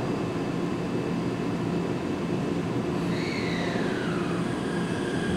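Steady rumble and hum of an underground metro station, with a thin whine that falls in pitch about three seconds in.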